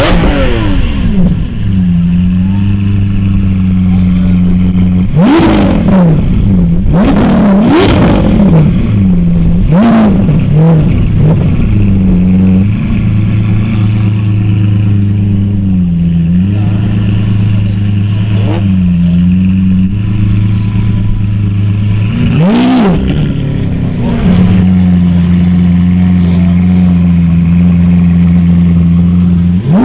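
Lamborghini Aventador's V12 engine idling loudly, blipped through a quick string of sharp revs about five to eleven seconds in, then a single bigger rev about three quarters of the way through, settling back to a steady idle after each.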